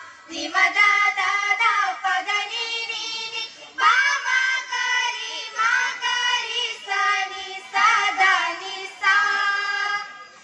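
A group of schoolgirls singing an Urdu group song together, in sung phrases with brief breaks about four and nine seconds in.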